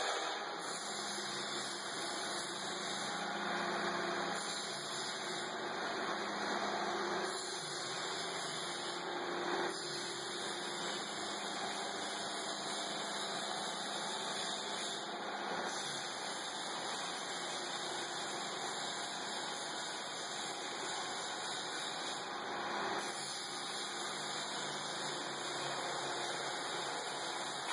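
Steady workshop background noise: an even hiss with a faint low hum and no distinct events.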